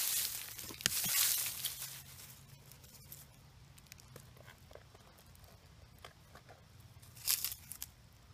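Dry leaf litter crunching and rustling. There is a louder stretch over the first two seconds, then faint scattered crackles, and a short louder burst near the end.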